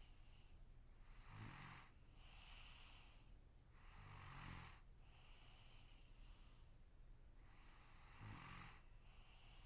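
A sleeping person snoring quietly: three snores at a slow, even rhythm of about one every three and a half seconds. Each snore is followed by a softer, breathy sound.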